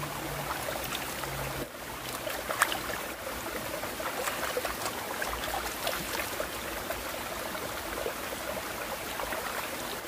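Shallow mountain stream trickling over rocks, with small splashes as a man scoops water from it with his hands to wash his face; one sharper splash about two and a half seconds in.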